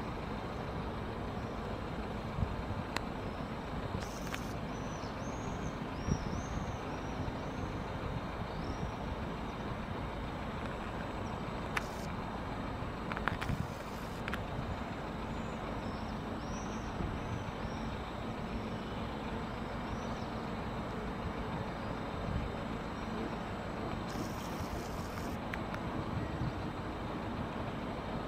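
Steady distant road traffic noise from a city street. Short runs of high chirping notes come through twice, along with a few brief hissy bursts.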